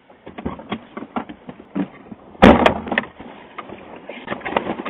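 Light scattered knocks and clicks, then a loud door slam about two and a half seconds in.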